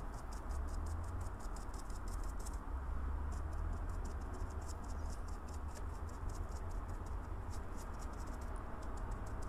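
A short-bristled, cut-down paintbrush tamping and brushing loose model-railway ballast grit between track sleepers: a run of quick, light scratchy ticks of bristles on grit. The ticks are dense for the first couple of seconds, then more scattered.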